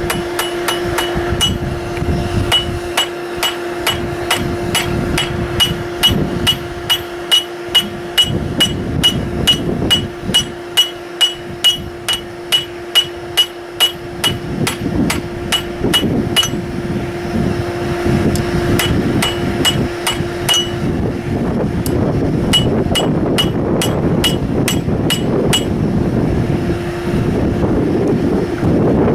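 Blacksmith's hammer striking steel on an anvil in a steady rhythm of about two blows a second, each blow with a short ring, breaking off briefly about two-thirds through and then resuming. A steady hum runs underneath.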